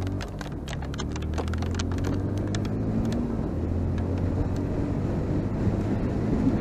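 Yamaha motorcycle engine running at road speed under steady wind rush, its pitch climbing over the first few seconds as it speeds up, then holding steady. Sharp ticks of raindrops hitting the camera come thick in the first half and thin out later.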